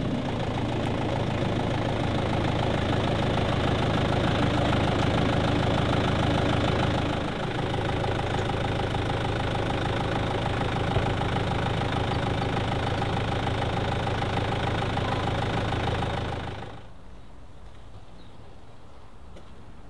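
Mitsubishi Canter light truck's diesel engine idling, with a slight change in its note about a third of the way in. The engine sound stops abruptly about three seconds before the end, leaving only faint background.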